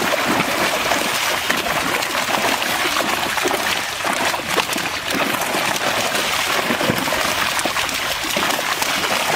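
Continuous splashing and churning of water: fish thrashing in a fishing net as it is hauled in, with many small splashes close together.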